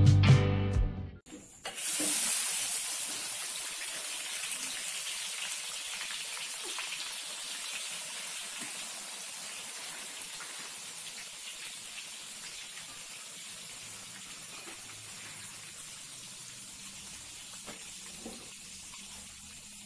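Peanuts deep-frying in hot oil in a wok. A loud sizzle starts suddenly as they go in, then slowly dies down to a softer, steady sizzle. Music plays for about the first second.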